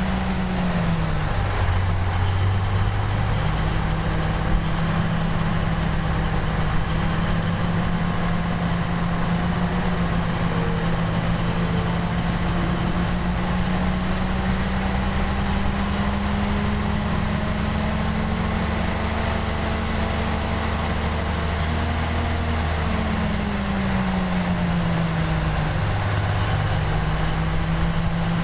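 M817 5-ton 6x6 military dump truck's Cummins diesel engine running steadily while it powers the hydraulic hoist lifting the dump bed. The engine note drops about a second in, creeps slowly back up, then falls again near the end and picks back up.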